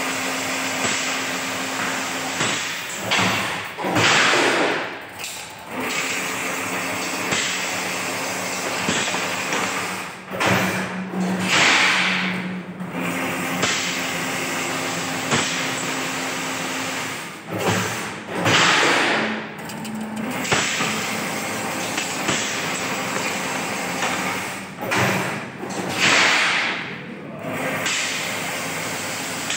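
Single-wire chain-link fence machine running: a steady motor hum. About every seven seconds it is broken by a louder swishing rush a second or two long, with knocks just before it, as the machine works through its cycle.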